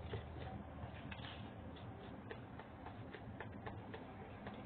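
Wire whisk mixing cake batter by hand in a plastic bowl: faint, irregular clicks and scrapes of the wires against the bowl.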